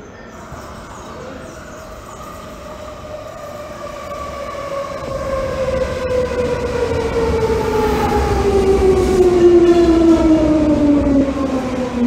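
Train pulling into a station: its whine falls steadily in pitch as it slows, over a low rumble, growing louder toward the end.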